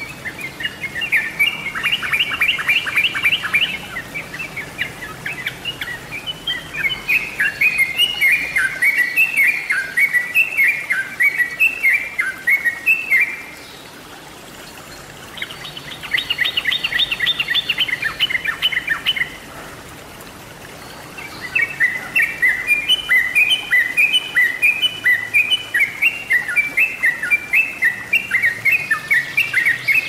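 Yellow-vented bulbul song: quick, bubbly chattering phrases in bursts, broken by two short pauses and twice by a fast rattling trill.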